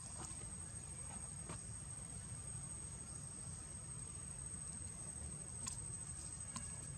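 Faint steady high-pitched trill of insects over a low background rumble, with a few faint ticks.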